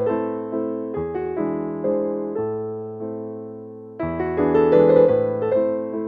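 Background piano music: gentle chords and notes struck in a steady rhythm, each fading away, growing louder about four seconds in.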